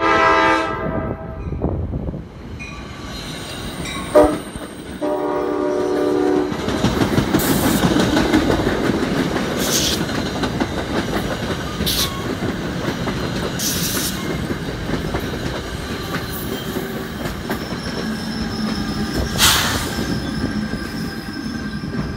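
Approaching NJ Transit push-pull train sounds its multi-tone horn in three blasts: one at the start, a short toot about four seconds in, and a longer blast just after. The Comet V coaches then pass close by with a loud steady rush and clatter of wheels on the rails. Near the end the pushing ALP-46A electric locomotive goes by with a steady electric hum.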